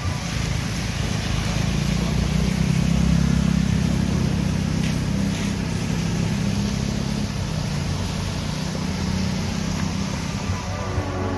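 Road traffic passing on a wet street: a steady low engine hum with tyre hiss over it, loudest a few seconds in.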